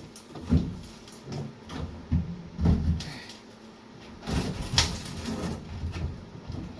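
Irregular knocks and thumps of a rusty steel fuel tank being wrestled out of its compartment, followed about four seconds in by a longer stretch of scraping and rattling as it is dragged.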